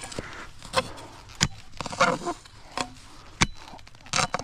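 A digging tool stabbing and chopping into soil among roots and a big rock while digging out a metal detector target: a series of sharp strikes, roughly one every half second to second.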